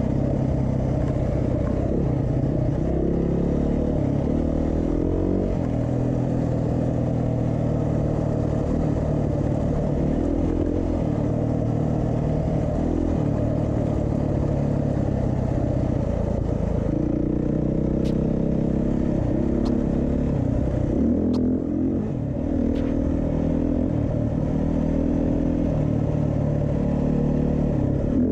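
Beta 390 RR-S single-cylinder four-stroke dual-sport motorcycle engine running under way, its pitch rising and falling again and again as the throttle opens and closes. A few sharp clicks come about two-thirds of the way through.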